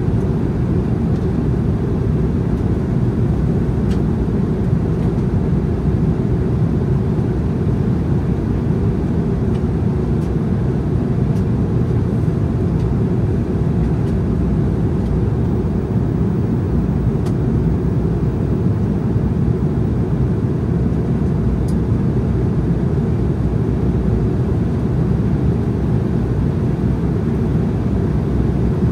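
Steady low rumble inside the cabin of an Embraer E190 jet airliner in flight: engine and airflow noise, even throughout, with a few faint ticks.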